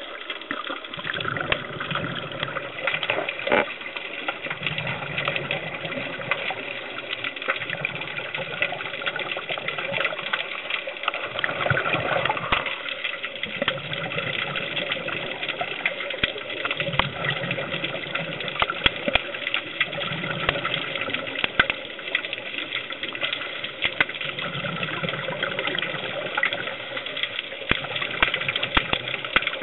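Underwater recording of scuba breathing: bursts of exhaled regulator bubbles rumble every few seconds over a steady water hiss and scattered crackling clicks.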